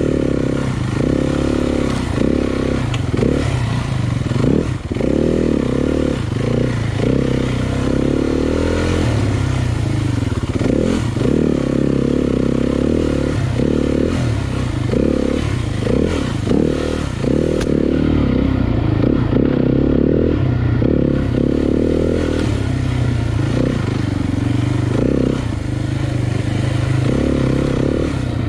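Dirt bike engine running through slow, technical trail riding, the throttle opened and closed in short bursts so the engine note keeps rising and dropping.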